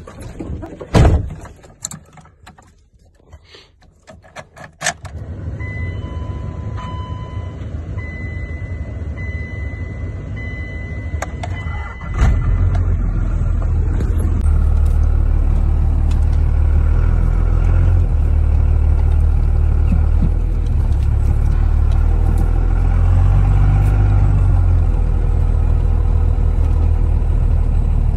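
A few knocks and bumps, then a steady hiss with a string of high warning chimes. About twelve seconds in, the LLY Duramax 6.6 L V8 turbodiesel starts and keeps running with a steady low rumble.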